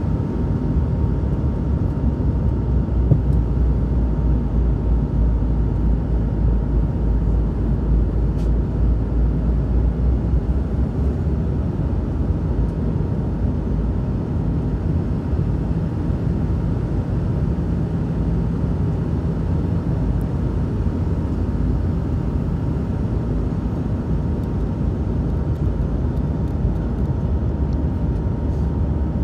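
Steady cabin noise inside a McDonnell Douglas MD-88 on approach: a low rumble of airflow and the rear-mounted Pratt & Whitney JT8D turbofans, with a faint steady whine. The deepest part of the rumble eases slightly about eleven seconds in.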